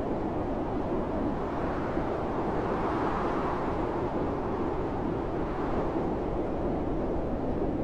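Blizzard wind blowing as a steady rush of noise, with a gust swelling and easing about three seconds in.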